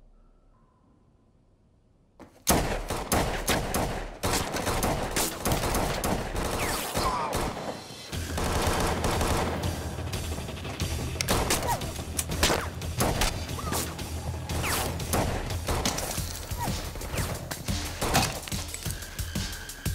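Near silence for about two seconds, then a sudden heavy gunfight in a film soundtrack: rapid, dense gunshots that keep coming. From about eight seconds in, a music score with a steady low bass runs under the shots.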